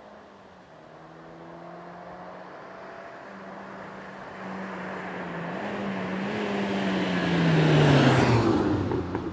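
A car driven hard up a winding road, its engine note rising and dipping several times as it accelerates towards the listener. It grows steadily louder and passes close by about eight seconds in with a rush of engine and tyre noise, the pitch dropping sharply as it goes away.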